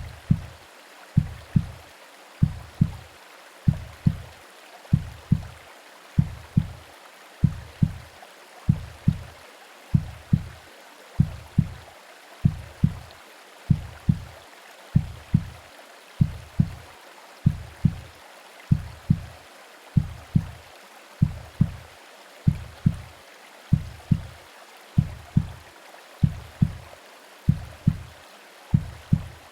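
Slow heartbeat as heard in the womb: paired low 'lub-dub' thumps about once every 1.2 seconds, over a steady soft hiss of white noise.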